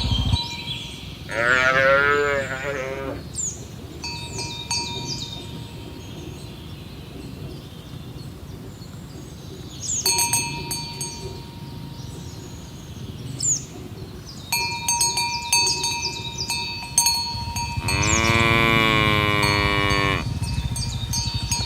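Cattle mooing: two long moos, one about a second in and another near the end. Between them come scattered metallic clinks, each leaving a short ringing tone.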